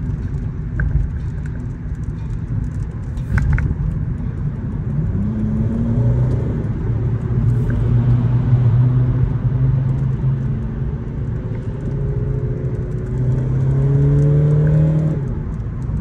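A car engine pulling under acceleration, heard from inside a car's cabin over steady road rumble. Its pitch climbs about five seconds in and holds, then climbs again near the end and cuts off suddenly.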